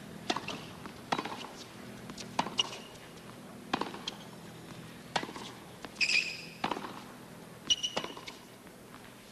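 Tennis rally on a hard court: sharp pops of racket strikes and ball bounces about once a second, with a faint steady background hum. Two short high squeaks of shoes on the court come about six seconds in and again near eight seconds.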